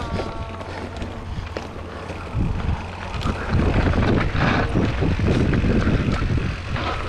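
Mountain bike riding down a wet dirt singletrack, heard from the bike-mounted camera: tyres rolling over dirt and stones, the bike rattling, and wind buffeting the microphone. It gets louder from about three and a half seconds in. A short squeal comes right at the start.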